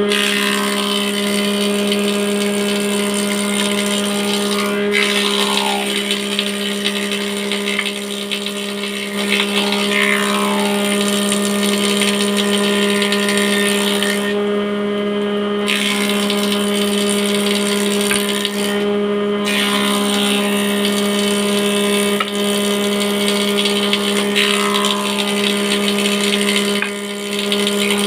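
Sawmill machinery running steadily with a constant motor hum and saw noise, presumably sawing mahogany. A few brief pitch sweeps come every few seconds.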